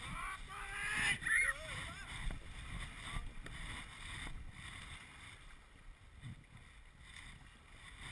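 Whitewater rushing past an inflatable raft in river rapids: a steady noisy rush with low buffeting on the GoPro's microphone, quieter in the second half. Raised voices in the first two seconds.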